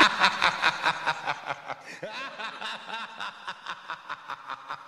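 Laughter in quick, evenly spaced pulses, about five a second, fading out gradually.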